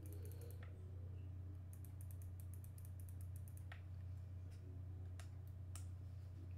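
Light plastic clicking as a partly disassembled Tavor airsoft rifle is handled: two quick runs of small clicks, then a few single clicks, over a steady low hum.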